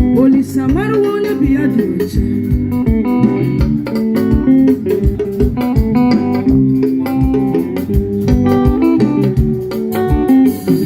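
Band music: plucked guitar melody lines over a bass part and a steady drum beat.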